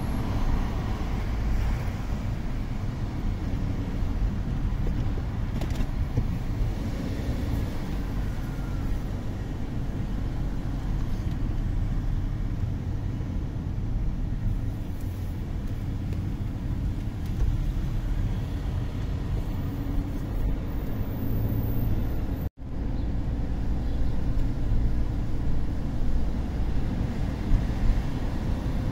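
Steady low rumble of a car's engine and tyres heard from inside the moving car, with a momentary cut-out of all sound about two-thirds of the way in.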